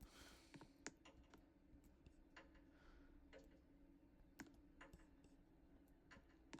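Near silence: faint room tone with a low steady hum and scattered faint clicks.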